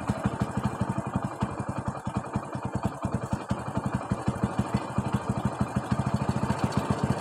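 Small engine running with a steady, rapid thumping of about ten beats a second, growing slightly louder near the end.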